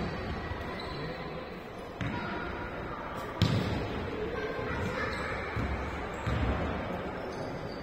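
Korfball game in a sports hall: a few sharp thuds of the ball and players on the floor, the loudest a little after three seconds in, over a steady background din.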